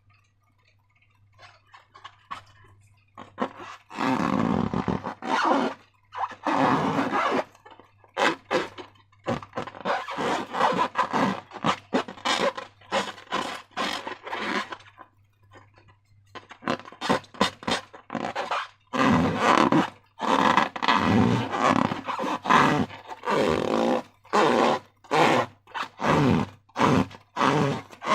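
Wet slime squelching and crackling as it is handled, in short irregular bursts, over a faint steady low hum.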